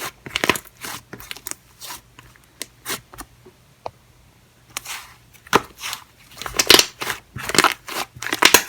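Slime being squeezed and poked by hand: irregular sticky clicks and pops, with a quieter pause about halfway through before a denser run of pops.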